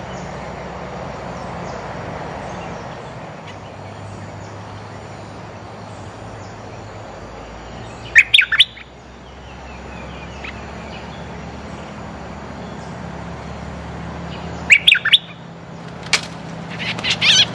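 Bulbul calls: a short burst of sharp, quick notes about eight seconds in, another about fifteen seconds in, and a longer run of chattering notes near the end, over a steady low background noise.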